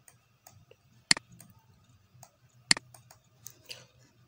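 Two sharp computer mouse clicks about a second and a half apart, with a few fainter ticks, over a faint low hum.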